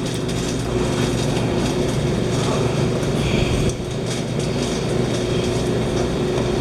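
A steady low mechanical hum with a faint constant tone through it, and scattered light clicks and rustles.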